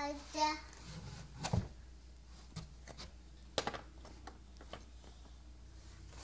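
A child's sung note trails off at the start, then scattered light clicks and knocks as plastic Little People toy figures and the toy farm are handled.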